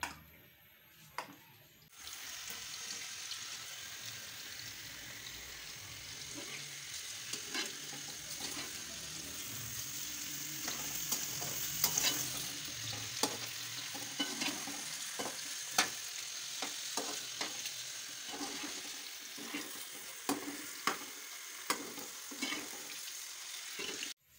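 Hot oil sizzling as food fries, a steady hiss with frequent sharp crackles and pops. It starts about two seconds in.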